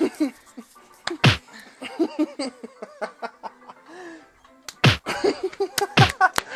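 Dubbed-in punch sound effects: two hard whacks, one about a second in and one just before five seconds, with laughing voices between them and a quick run of smaller smacks near the end.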